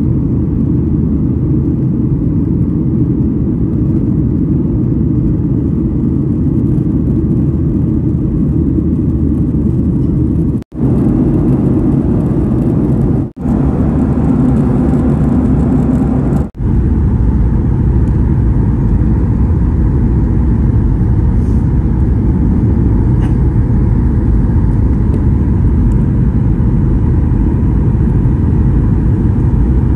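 Steady jet airliner cabin noise from a seat by the wing of a Boeing 737: a loud, constant rumble of engines and airflow. It breaks off for an instant three times, about 11, 13 and 16 seconds in, where the footage is spliced, and the tone shifts slightly after the last break.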